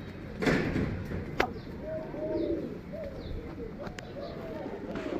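Pigeons cooing, several coos following one another and overlapping, with faint short high chirps of other birds. A brief rustling burst comes about half a second in, and a sharp click just after.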